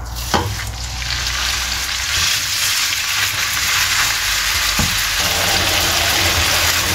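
Raw minced beef sizzling in hot oil in a frying pan. The sizzle swells over the first second or two after the meat goes in and then holds steady, with a couple of short knocks as the wooden spoon pushes the meat.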